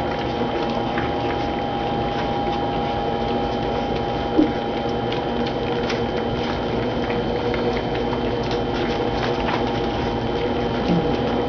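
A litter of young puppies lapping and smacking at wet puppy food in shared dishes, a busy, even patter of small wet clicks, with a steady hum underneath.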